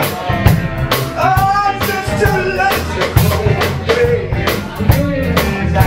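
Live blues band playing a slow blues: electric guitar, electric bass and drum kit keeping a steady beat, with a lead melody over the top that bends in pitch.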